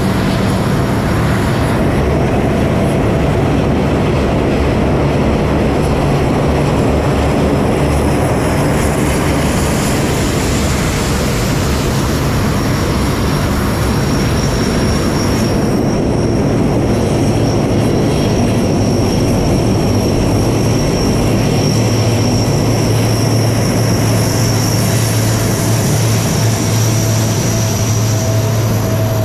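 C-130 Hercules turboprop transports taxiing, their engines and propellers running in a steady loud drone with a low hum. A high turbine whine comes in about halfway through and grows stronger near the end.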